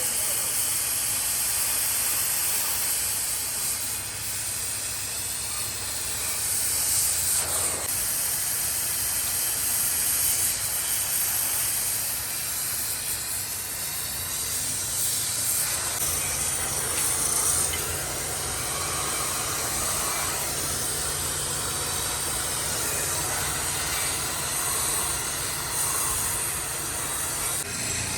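Oxy-fuel gas cutting torch hissing steadily as it cuts the steel leaf spring, with a low hum underneath and the hiss swelling now and then.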